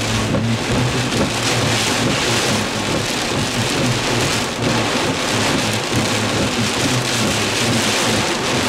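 Heavy storm rain and wind beating on a parked car, a dense steady hiss with a low hum underneath.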